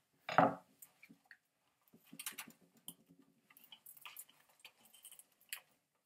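Light clicks and rattles of plastic and metal parts as the spring-mounted drive shaft of an Arrma Granite 4x4 RC truck is pushed, pulled and slid out by hand, with a louder knock about half a second in.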